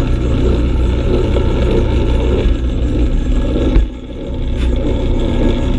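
Metal lathe running and taking a light cut on a metal part: a steady motor-and-drive hum with cutting noise. A sharp click about two-thirds of the way through, after which the sound dips briefly and builds back up.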